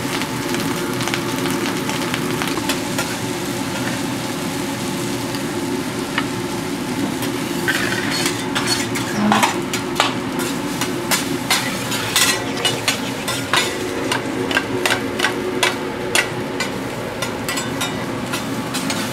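Food sizzling on a steel teppanyaki griddle, with a metal spatula scraping and clicking against the hot plate. The clicks come thick and fast in the second half.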